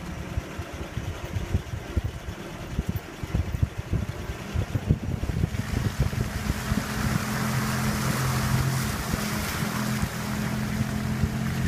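Series Land Rover driving off-road with irregular low thumps and rumble over the rough track. From about halfway in, water splashes loudly around the vehicle as it wades through a flooded stretch, over a steady engine note.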